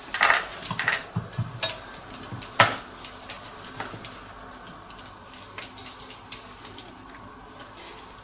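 Teaspoons clicking and scraping as sausage-meat stuffing is scooped from a tub and pressed into hollowed tomatoes and round courgettes. The clicks are scattered and irregular, thickest in the first few seconds, with the loudest about two and a half seconds in.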